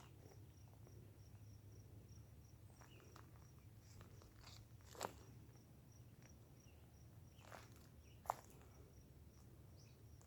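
Faint, steady insect chirping, a high repeated pulse about four times a second, with a few sharp crunches and snaps of footsteps on dry ground.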